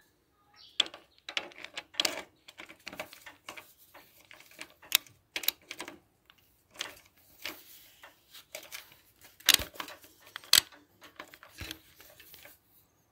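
Irregular metallic clicks and taps of a wrench working the valve adjuster and locknut on an Alpha moped's cylinder head, tightening it down with a feeler blade in the valve gap. Two louder knocks come about two-thirds of the way through.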